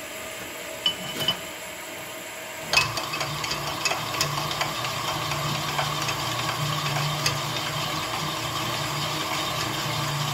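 Sunnen rod-honing machine running while a connecting rod is stroked back and forth over its spinning mandrel, honing the rod's bore, with metal clinks as the rod rides the mandrel. The honing sound starts with a clank about three seconds in and then holds steady.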